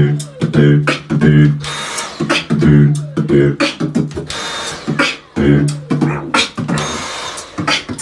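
Beatboxing over a cordless stick vacuum cleaner: deep pitched bass notes and sharp clicks in a steady beat, with the vacuum's motor whirring in short spells about every two and a half seconds as part of the groove.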